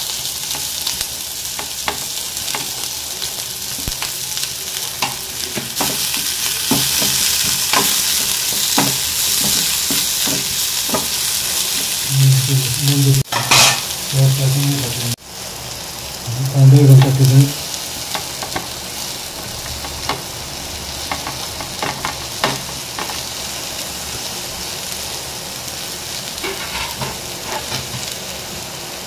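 Spices sizzling in hot oil in a pan, stirred with a spoon that clicks against the pan now and then. A few short, low hums break in about halfway through.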